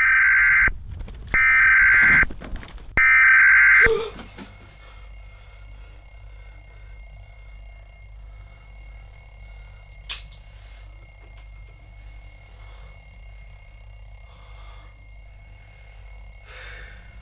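An alarm ringing in loud pulses, each just under a second long, about every one and a half seconds. It is cut off abruptly about four seconds in with a thump, leaving a quiet room with a steady low hum and one sharp click a few seconds later.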